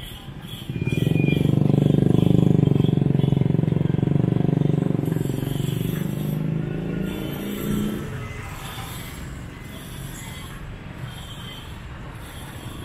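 Engine of a motor vehicle passing close by on the street: it rises suddenly about a second in, stays loud for a few seconds, then fades away by about eight seconds, leaving quieter traffic in the background.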